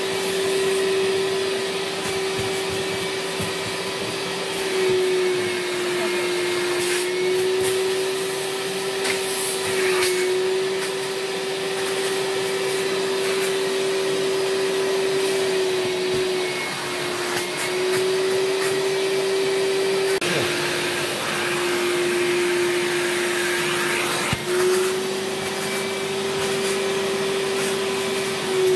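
Vacuum motor of a mattress-washing extraction machine running steadily, its suction drawn through an upholstery nozzle passed over a mattress. A steady hum-like tone over a rushing hiss, its pitch dipping slightly a few times.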